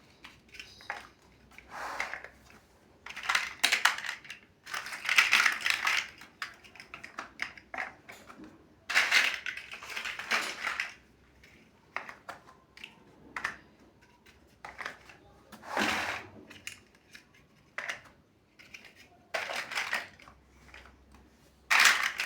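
Plastic building bricks being handled and pressed together: irregular clicks, clatters and short rustling scrapes with pauses between.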